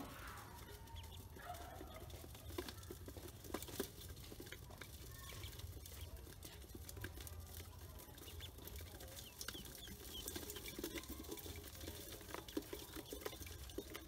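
Ducklings pecking seed and pattering in a metal basin: a steady scatter of light taps and clicks, with a few faint peeps mostly near the start.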